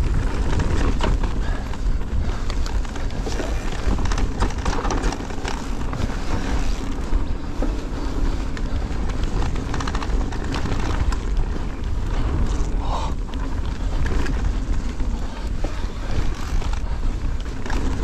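Wind rushing over the microphone while an electric mountain bike rides down a rocky trail, with the tyres rumbling over the ground and frequent clicks and rattles from the bike over the stones.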